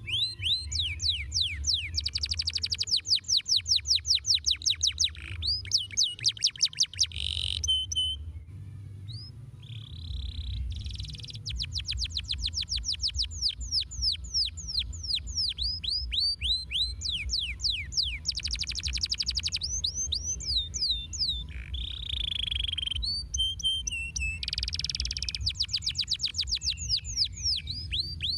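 A domestic canary singing: long, fast trills and rolls of rapidly repeated notes sweeping in pitch, in phrases broken by short pauses, over a low steady rumble.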